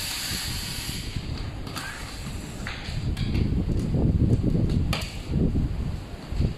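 Electric screwdriver whirring for about the first second as it backs out screws from a plastic solar street light housing, then a few sharp clicks and irregular knocking and rubbing as the tool is set down and the housing is handled.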